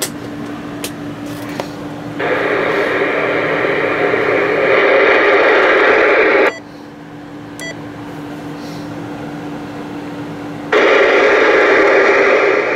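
President Lincoln II+ ten-meter radio's speaker hissing with receiver static in two stretches: it comes on about two seconds in, cuts off suddenly past the middle, and comes back near the end. A steady hum runs underneath until the static returns.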